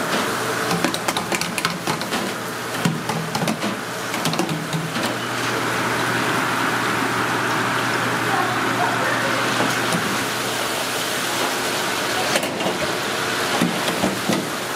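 Chicken wings deep-frying in a commercial fryer: steady sizzling and bubbling of hot oil over a low steady hum, with a run of sharp metal clicks in the first few seconds as the wire baskets are handled.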